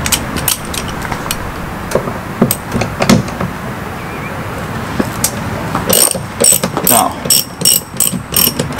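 Half-inch drive ratchet with a T50 Torx socket turning a door hinge bolt: a few scattered pawl clicks at first, then a quick run of clicks, about four a second, over the last three seconds.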